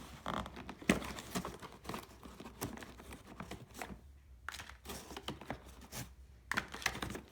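Plastic packaging crinkling and rustling, with irregular small clicks and knocks, as small hardware is unwrapped and handled.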